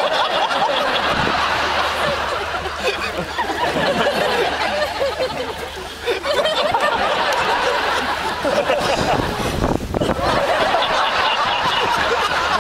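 A large audience laughing, sustained, easing briefly about six seconds in before swelling again.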